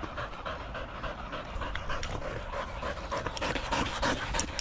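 Several dogs panting after running and fetching, a steady run of quick, breathy huffs.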